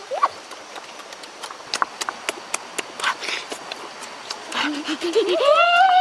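Close-up mouth noises of someone eating grilled fish by hand: irregular wet smacks and sharp lip clicks. About five seconds in comes a long drawn-out vocal 'mmm' of enjoyment that rises and then falls in pitch.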